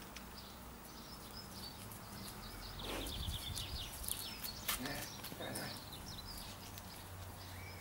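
Faint outdoor ambience with small birds chirping here and there, and a few soft rustles and clicks.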